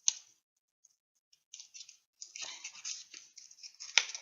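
Product packaging being handled and opened by hand: a sharp click, then crinkling and rustling in bursts, with another sharp click near the end.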